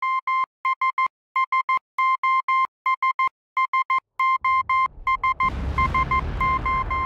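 Morse code beeps: a steady tone keyed in short and long pulses. About four and a half seconds in, a low rumble comes up underneath and grows loud, with the beeps carrying on over it.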